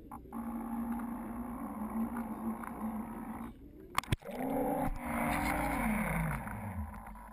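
Electric drive motor of an RC model Coast Guard 47 boat whining steadily, heard from the onboard camera. About four seconds in there is a sharp knock, then water sloshing, and the motor's whine winds down, falling in pitch, as the boat rolls over.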